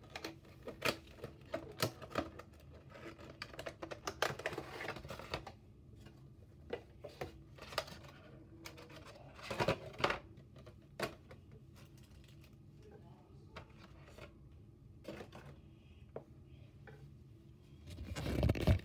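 Hands handling cardboard and plastic packaging while unboxing a small die-cast model airliner: scattered light clicks and taps of the box and plastic tray, with stretches of crinkling plastic wrap. A louder, low rustle comes near the end.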